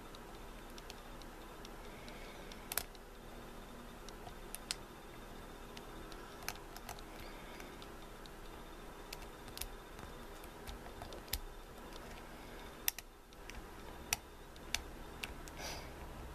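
Small, irregular metallic clicks and ticks from a hook pick working the pins of an older Corbin pin-tumbler lock held under tension, the picker feeling for pins that bind and set. There are about a dozen separate clicks, the sharpest about three seconds in and near thirteen seconds, over a faint steady hum.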